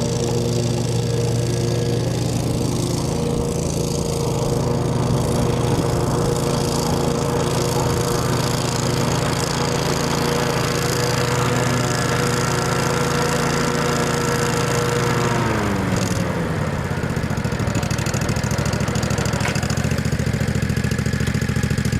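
2005 Exmark 36-inch Hydro Viking walk-behind mower's 15-horsepower Kawasaki engine running steadily at speed; about two-thirds of the way through, its pitch falls as it slows to a lower, steady idle.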